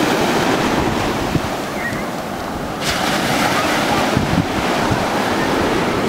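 Ocean surf breaking and washing through the shallows, with wind buffeting the microphone; the wash swells louder just before three seconds in.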